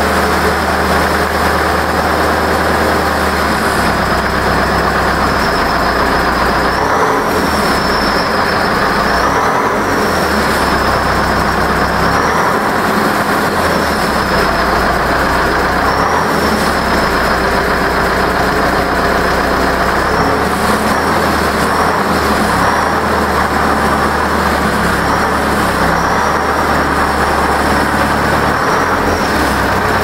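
Zetor 7245 tractor's diesel engine running with a fake turbo whistler stuck in its exhaust tailpipe. It gives a steady thin, high whistle over the engine note. The whistle rises briefly twice when the engine is revved, about a quarter of the way in. It is a plain whistle imitating a turbo on an engine that has none.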